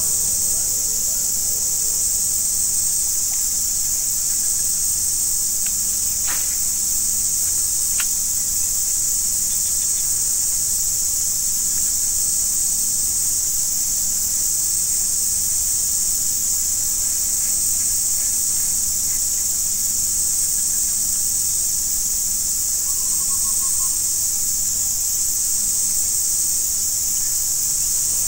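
A steady, high-pitched chorus of insects droning without pause, with a couple of faint clicks about six and eight seconds in.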